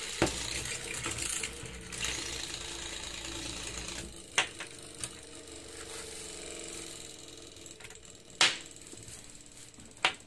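Control-moment gyroscope of a self-balancing two-wheeler, its heavy aluminium flywheel rotor spun by a DC motor, running with a steady mechanical whirr and rattle that fades gradually. Several sharp clicks come through it, the loudest about eight seconds in.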